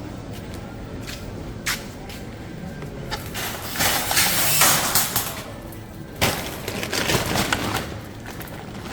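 Metal shopping trolley being pulled out of a row of nested trolleys: a few sharp clanks, then a rattling clatter lasting about a second in the middle, then more knocks.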